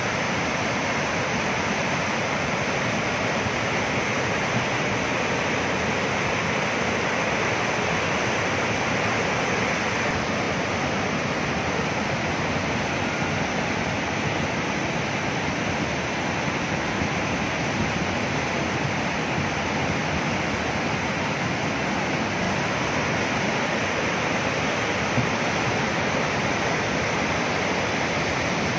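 The Beas River in monsoon flood, a swollen, silt-laden torrent rushing over boulders: a loud, steady rush of white water that does not let up.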